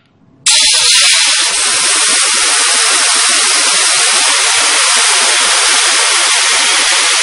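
Compressed air from a blow gun hissing steadily into a disc brake caliper's hose port, pushing the piston out of its bore. The hiss starts abruptly about half a second in.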